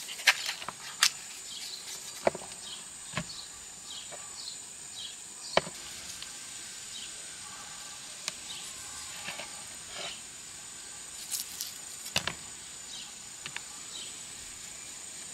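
Steady, high-pitched insect chirring, with about half a dozen sharp knocks at irregular intervals.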